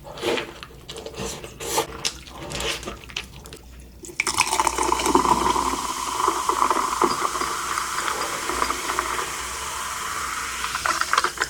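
A few seconds of clicks and rustling from handling, then liquid pouring or running in a steady rush that starts suddenly about four seconds in and lasts about seven seconds.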